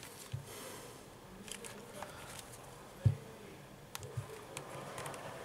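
Handling noises of a smartphone being picked up and a micro-USB charging cable plugged into it: scattered soft clicks and knocks, the loudest a knock about three seconds in.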